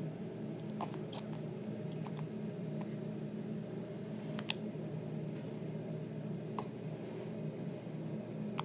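A one-month-old baby hiccuping: a few short, sharp hiccups a couple of seconds apart, over a steady background hum.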